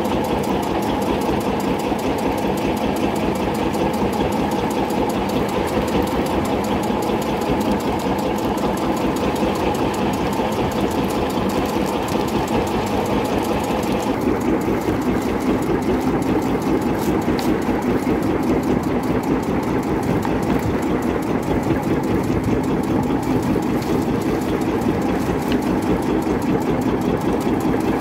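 Small fishing boat's engine running steadily at idle, with a fast, even firing beat.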